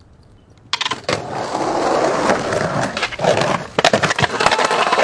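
Skateboard set down on concrete about a second in, then its wheels rolling loudly over rough concrete, with several sharp clacks of the board striking the ground during a trick attempt.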